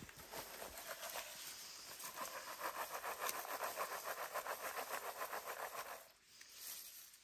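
A berry-picking scoop raking through wild blueberry bushes: a fast, rhythmic rustling rasp that grows louder about two seconds in and stops suddenly about six seconds in.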